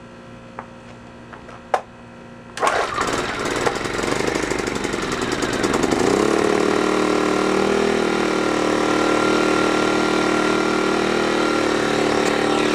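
Earthquake IG800W inverter generator's small four-stroke engine being pull-started on choke: a few light clicks, then about two and a half seconds in the engine catches. It runs up unevenly at first and settles into a steady run about six seconds in.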